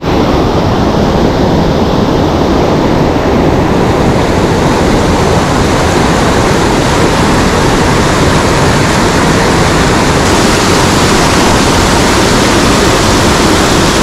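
Mountain stream running loudly and steadily, a continuous rush of water close by.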